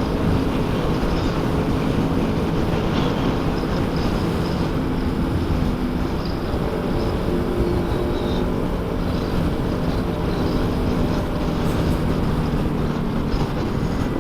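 Motorcycle engine running at a steady cruising speed, nearly buried under heavy wind buffeting on the microphone from a strong gale.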